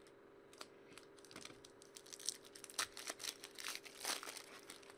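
Foil trading-card pack wrapper crinkling and tearing as it is opened by hand. It is a quick run of rustles and snaps that starts about half a second in and grows busier toward the end, over a faint steady hum.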